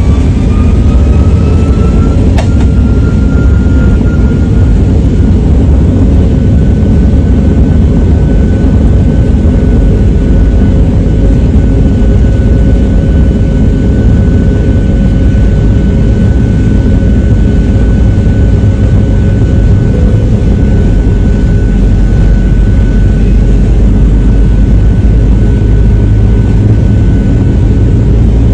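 Airliner's jet engines at takeoff power, heard from inside the cabin: a loud steady rumble with a whine that rises over the first couple of seconds and then holds steady. A single sharp click sounds about two seconds in.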